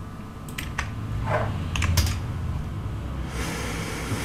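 Computer keyboard keystrokes in short clusters, about half a second in and again near two seconds in, over a low steady hum.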